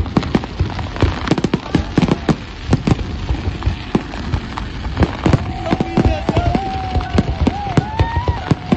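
Fireworks display: a dense, rapid string of bangs and crackles from many shells bursting at once. About five seconds in, a wavering high tone sounds over them for a few seconds.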